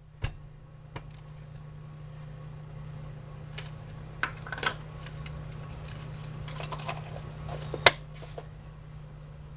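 Scattered clicks and knocks of dishes and food containers being handled, the loudest a sharp click about eight seconds in, over a steady low hum.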